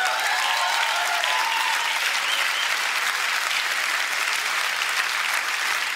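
Large theatre audience applauding steadily, with a few voices calling out over the clapping in the first second.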